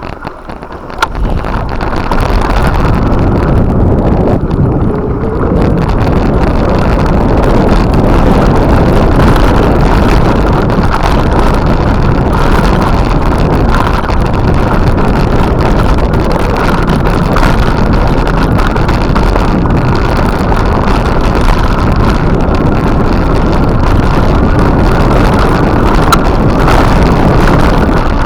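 Steady rush of wind buffeting the microphone while riding a bicycle along a forest road, with a low rumble underneath. It is quieter for the first second or two, then holds loud and even.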